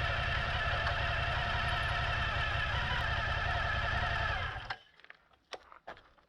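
Suzuki V-Strom motorcycle engine running steadily, cutting off abruptly about three-quarters of the way through, followed by a few sharp clicks.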